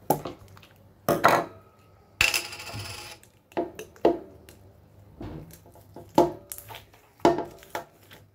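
Clear plastic potion container clicking and knocking against the tabletop as bead-filled slime is pushed into it: about nine sharp, irregular knocks, with a longer crackling squelch a little over two seconds in.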